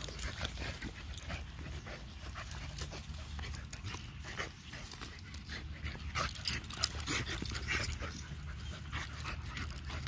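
Two dogs play-fighting on leashes, with irregular scuffling, mouth and breathing noises. A sharper sound stands out about three seconds in, and the loudest near seven seconds.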